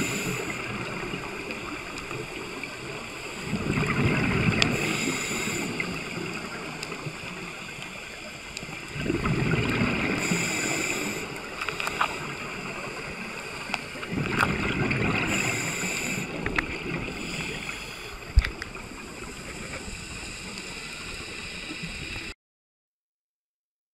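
Underwater recording of scuba breathing: steady regulator noise with exhaled bubbles gurgling up in bursts every five or six seconds, and a few sharp clicks. The sound cuts off suddenly about two seconds before the end.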